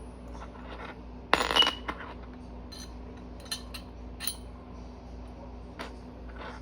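Metal plates and bolt of a motorcycle chain slider being handled and fitted together: a loud metallic clatter with a short ring about a second and a half in, then a few light clicks and taps.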